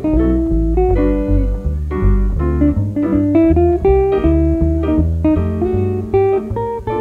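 Live jazz from a trio of guitar, digital piano and upright bass, with the plucked bass playing a steady line of separate low notes under the guitar and piano.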